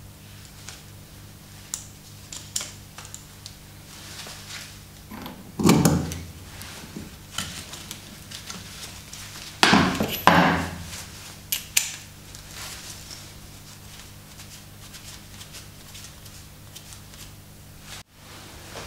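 Small metal clinks and knocks of a steel socket, nuts and threaded rod being handled on a wooden board, with two louder clatters about six and ten seconds in, over a steady low hum.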